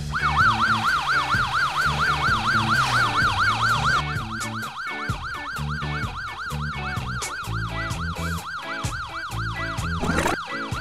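Fire-truck siren sound effect: a fast warbling wail, rising and falling about three times a second, over background music. It turns fainter about four seconds in, and a short rising sweep comes near the end.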